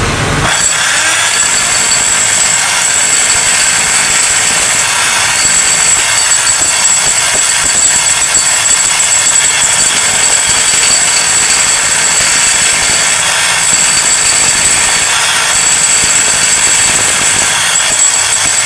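Hilti TE 500-X electric demolition hammer running, breaking concrete with a steady, very rapid stream of blows that does not let up.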